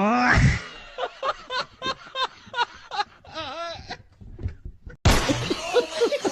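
A quick rising pitch glide, then a run of short bursts of laughter. About five seconds in, a loud clip with music and voices cuts in.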